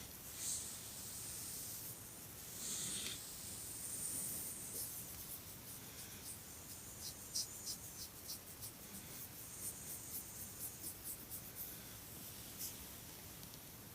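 A sleeping dog's soft breathing, with two faint hissing breaths in the first few seconds. Then comes a run of faint, irregular ticks over most of the rest.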